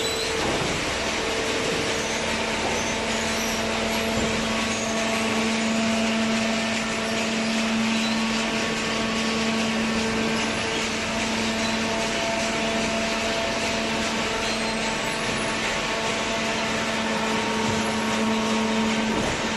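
Hydraulic baler's power unit running: a steady machine drone with a low, even hum that comes in about a second and a half in and holds.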